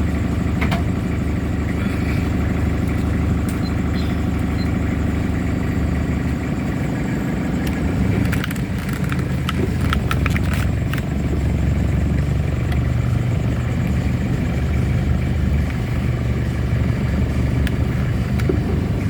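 Toyota Kijang Kapsul diesel engine idling steadily, with a few light clicks about eight to eleven seconds in.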